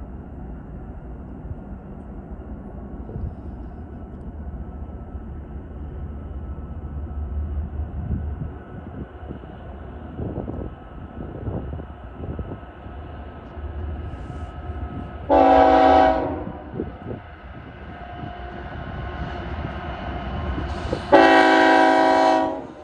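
BNSF diesel locomotives hauling an intermodal train approach with a low engine rumble that slowly grows louder. The lead locomotive's air horn sounds twice: a short blast about fifteen seconds in, then a longer, louder blast near the end.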